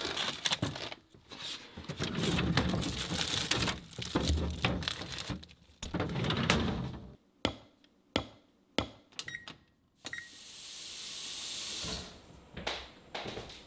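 Kitchen handling sounds: a string of knocks, thuds and clatter from cupboard doors, drawers and cookware. About ten seconds in comes a steady hiss lasting roughly two seconds, then a few more knocks.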